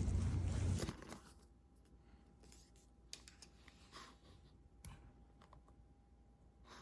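Loud steady noise with a low hum that cuts off suddenly about a second in, followed by a few scattered light clicks and taps in a quiet small room.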